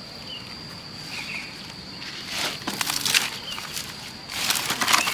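Insects chirring with a steady high whine. Two bursts of close rustling and crackling, one about two seconds in and one near the end, are the loudest sounds.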